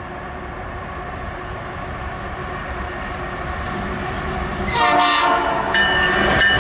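Freight train led by a GE AC4400CW diesel locomotive approaching, its engine and wheel rumble growing louder. Near the end its air horn sounds a short blast, then a longer chord of several notes that carries on.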